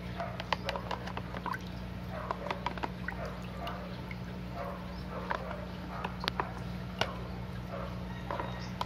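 Muddy pond water trickling and dripping through a small mesh strainer into a plastic tub, with many small irregular splashes, as daphnia are sieved out of the mud. A steady low hum runs underneath.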